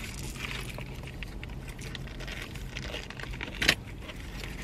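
Eating sounds: soft chewing and the rustle of a sandwich's paper wrapper, with one sharp crunch about three-quarters of the way through as a toasted sub is bitten into.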